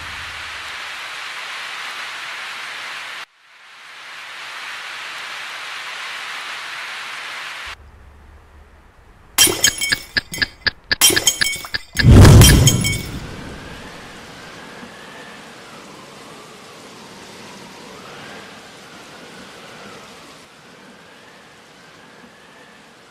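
Sound effects on a stop-motion film's soundtrack. Two stretches of steady rushing noise come first. About nine seconds in there is a rapid run of sharp cracks and clicks, then a loud low boom, the loudest sound, which fades into a hiss with a faint wavering tone.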